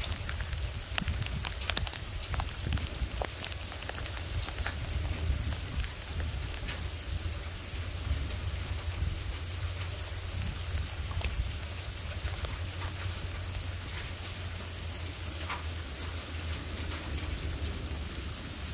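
Rain falling steadily in a thunderstorm, with many sharp drop hits close by and a low rumble underneath.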